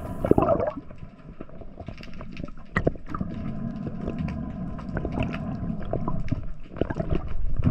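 Underwater sound picked up by a diver's camera: a low, even rumble of moving water with many scattered clicks and small knocks.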